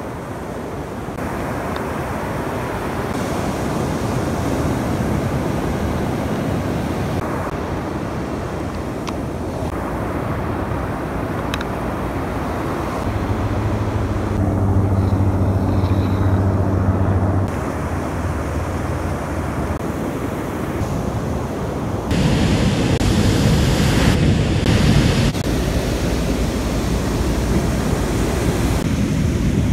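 Ocean surf breaking and wind buffeting the microphone, a steady rushing noise that shifts abruptly several times. A steady low hum sounds for a few seconds midway.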